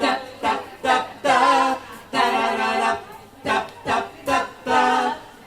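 Vocal trio singing a cappella in close harmony, mixing short clipped notes with a few longer held chords.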